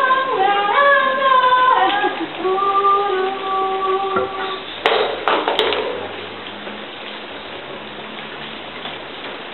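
A woman singing unaccompanied, with long held notes that glide between pitches, stopping about halfway through. Then two sharp knocks come a little under a second apart.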